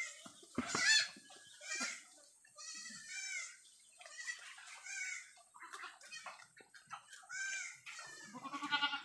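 Goats bleating over and over, about eight wavering calls, most of them high-pitched like a young kid's. The bleats are typical of a kid crying for its mother.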